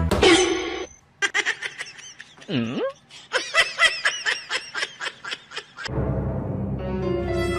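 A person laughing in a quick run of short 'ha-ha' pulses with one deep swooping vocal sound among them; low music comes in near the end.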